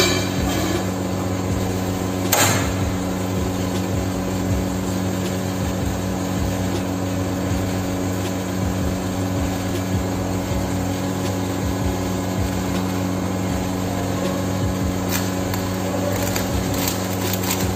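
Steady mechanical hum over a low hiss, broken by a single sharp click about two and a half seconds in.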